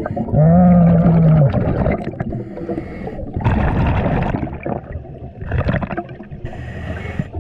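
Scuba diver breathing through a regulator underwater: a steady hummed tone for about a second near the start, then the bubbling and gurgling of the breathing.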